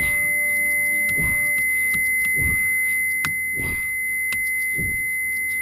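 A Honda Insight's warning buzzer sounding one steady, unbroken high-pitched tone. Faint clicks of handling can be heard under it.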